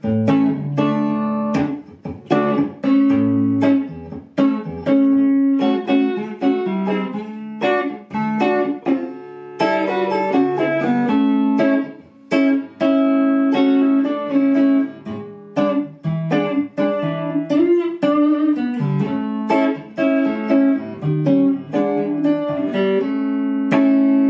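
1980s two-knob Fender Stratocaster electric guitar played on its neck pickup with the tone knob turned fully up for a more trebly sound. It plays a flowing run of picked single notes and chords, ending on a held, ringing chord near the end.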